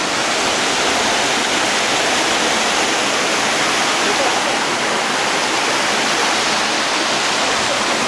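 Mountain stream of the Dzhur-Dzhur waterfall tumbling over rock cascades into a pool: a steady, even rush of falling water.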